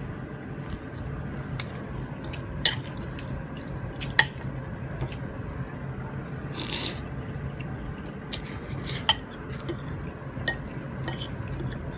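Metal fork and spoon clinking and scraping against a bowl of noodles while eating, several sharp clinks spread through, with a noisy slurp of noodles midway. A steady low hum runs underneath.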